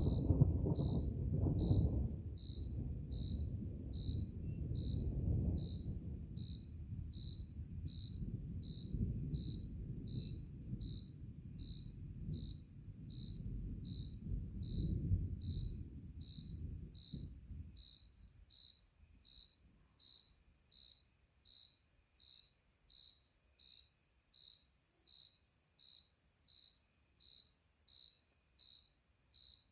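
Distant thunder rolling in a long low rumble that swells and fades away over the first two-thirds. Under it an insect, tagged as a cricket, chirps steadily at about one and a half chirps a second and is left alone once the thunder dies.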